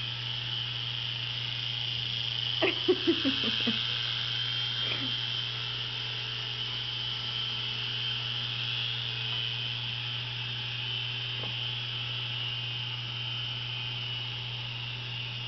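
Small electric motors and rotors of an Air Hogs Havoc toy helicopter whining steadily as it hovers. About three seconds in comes a quick run of five or six short, falling, pitched sounds.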